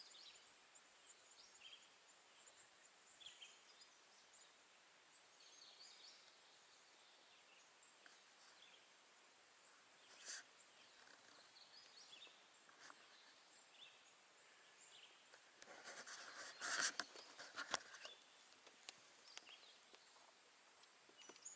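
Near silence: quiet outdoor ambience with a few faint bird chirps, and a brief patch of clicks and rustling about three quarters of the way through.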